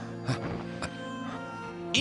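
Background music score with sustained, held notes.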